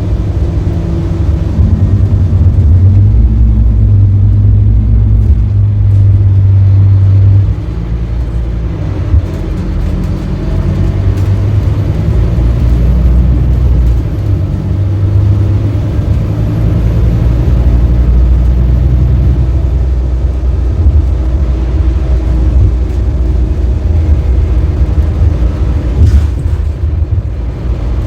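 Scania K310UB city bus's diesel engine running under load with a heavy low rumble. It eases off suddenly about seven seconds in, then pulls strongly again.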